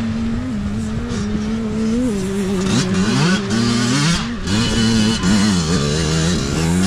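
Two dirt bike engines revving, their pitch rising and dropping with throttle and gear changes; one bike gets louder about halfway through as it climbs out of a muddy water crossing and passes close by.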